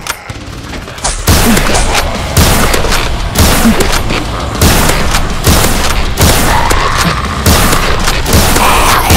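Gunshot sound effects dubbed over blaster fire, one sharp shot about every second, each ending in a short boom.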